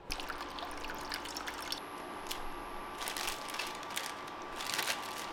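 Water poured from a plastic bottle into a stainless-steel pan, splashing with irregular spatters.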